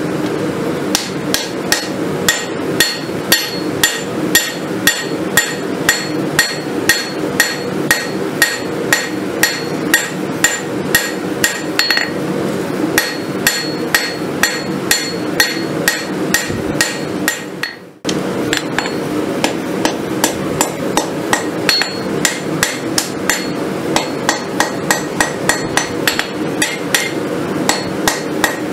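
Hand hammer striking red-hot steel on a Cavalry anvil, drawing out a kukri blade forged from a farrier's rasp. It strikes steadily, about two to three blows a second, and each blow rings. The hammering pauses briefly about two-thirds of the way through, then carries on.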